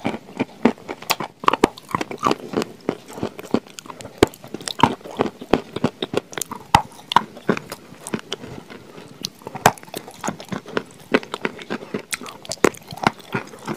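Close-up biting and chewing of a white chalk-like lump coated in chocolate spread: a soft crunch made of many sharp little cracks, several a second, in an uneven run.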